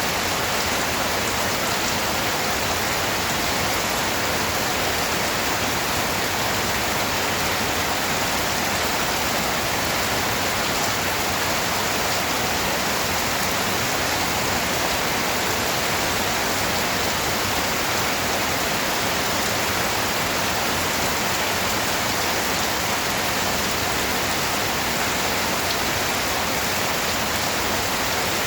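Steady rain falling, a dense even hiss of drops on surfaces with no thunder or other sounds standing out.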